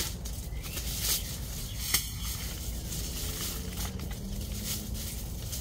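Thin plastic protective bag crinkling and rustling as it is pulled off a folded air mattress, in irregular crackles with one sharper crackle about two seconds in.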